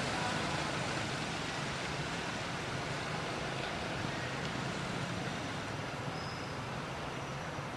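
A steady low engine hum under a constant noisy wash, easing slightly in level: background motor-vehicle noise.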